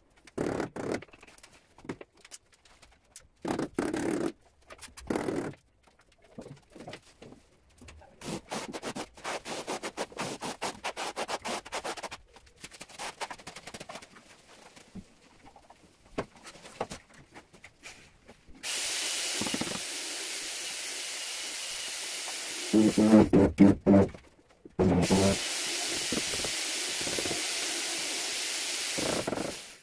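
Floor tiling on large porcelain tiles: scattered taps, clicks and scraping at first, then, about two-thirds in, a steady machine hiss that runs to the end, with a short, much louder humming stretch in the middle of it.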